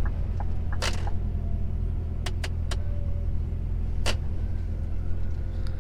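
Truck engine running with a steady low rumble, heard from inside the cab, with a few sharp clicks and knocks about one, two and a half and four seconds in.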